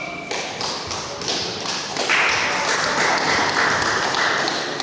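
Scattered taps and claps, then a burst of applause from spectators in a large hall about two seconds in, lasting about two and a half seconds and fading near the end.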